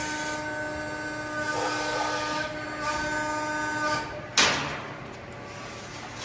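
CNC press brake running with a steady pitched whine for about four seconds, then a sudden loud noise that dies away quickly.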